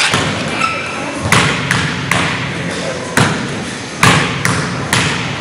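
Basketball bounced on a hardwood gym floor before a free throw: about seven hard thuds, coming in quick runs roughly two or three a second, over a low background of gym noise.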